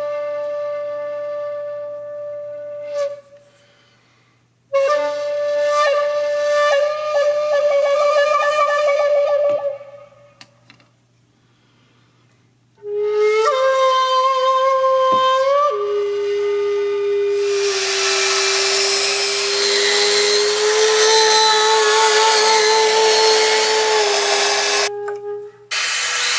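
Background music: a slow flute melody of long held notes in phrases, with short pauses between them. For several seconds in the second half, a loud, even rushing noise runs under the flute.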